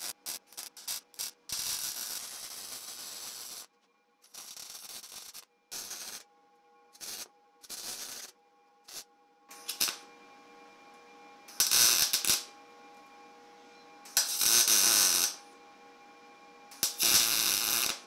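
Welder tack-welding steel bike-frame tubing: a series of short bursts of arc noise separated by silences. There is a quick run of very short tacks at first, then a longer weld of about two seconds, then single tacks of half a second to a second with longer gaps between them. A faint steady hum comes in about halfway through.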